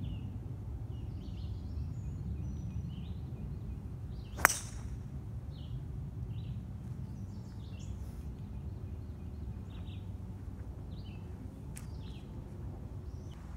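Golf club striking the ball in a full swing: one sharp crack about four and a half seconds in, over birds chirping and a steady low outdoor rumble.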